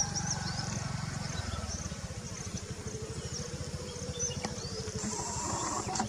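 Faint, high chirps of small forest birds over a low, rapidly pulsing rumble.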